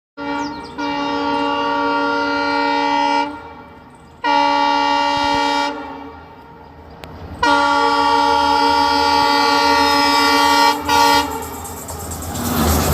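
Indian Railways diesel locomotive horn sounding three long blasts of a multi-note chord, the third one briefly broken just before it ends. Near the end the train's running noise takes over.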